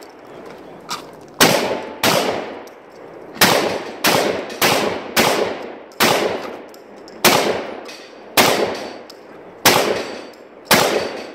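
A long gun fired in a competition string: about eleven loud gunshots at an uneven pace, half a second to a little over a second apart, each with a short echoing tail.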